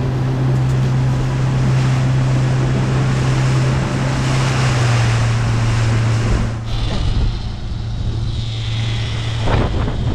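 Twin outboard motors running steadily, a low, even drone, under the rush of wind and churning wake water. About two-thirds of the way through, the rushing hiss drops away and the motor drone remains.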